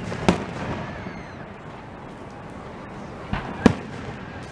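Aerial fireworks shells bursting with sharp bangs: one just after the start, then a weaker bang followed closely by a loud one about three and a half seconds in.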